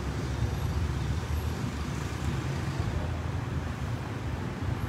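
Steady low rumble with a faint even hiss, with no distinct events.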